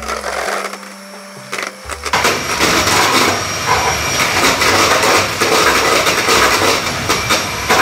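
Electric hand mixer whipping cream in a stainless steel bowl. The motor and beaters run loudly and steadily from about two seconds in.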